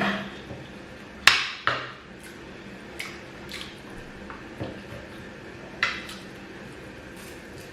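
Cutlery clinking and scraping against a plate of food in a few short, separate knocks, the loudest about a second in, during a mukbang meal of gari with beans and fried plantain.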